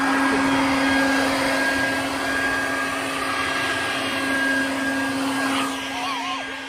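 Corded electric leaf blower running steadily, with a constant hum and a high whine over the rush of air.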